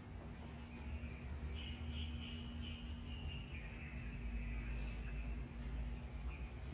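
Steady ambient background noise: a low rumble under an even, high-pitched hum, with a fainter higher sound for a couple of seconds about a second and a half in.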